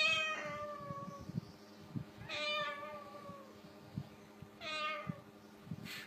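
White cockatoo imitating a cat's meow: three drawn-out meows about two seconds apart, each sliding slightly down in pitch.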